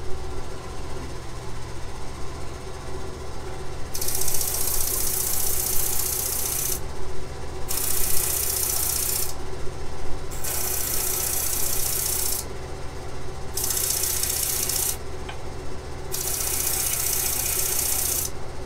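Lathe motor running steadily with a sanding disc on it, and a small wooden pentagon pressed against the spinning sandpaper in five short passes, each a loud hiss of one to three seconds, starting about four seconds in. The passes are fine-tuning the pentagon's edge angles.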